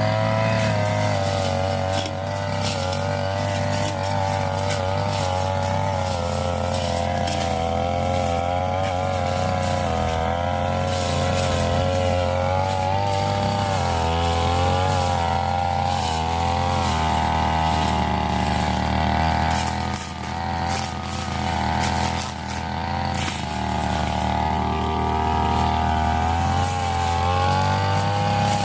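Brush cutter engine running hard while cutting through scrub, its pitch wavering up and down as the blade takes the load. The loudness dips briefly twice about two-thirds of the way through.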